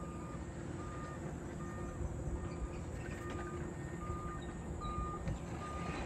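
Backup alarm on heavy construction machinery beeping steadily, with short single-pitch beeps about five every four seconds, over the low rumble of the machines' engines.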